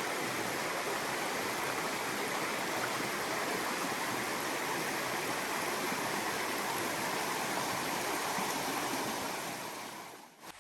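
Steady rushing of a stream's running water, fading out about a second before the end.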